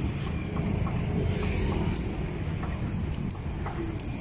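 Steady low rumble of street traffic, motorbikes and cars passing, with a few faint clicks of metal tongs on the grill.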